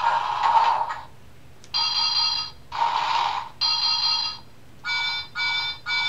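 The built-in sound chip of a Thomas & Friends play-a-sound book, playing through its small speaker: steady tones of several notes at once, alternating with hissing bursts, then three short toots in quick succession near the end.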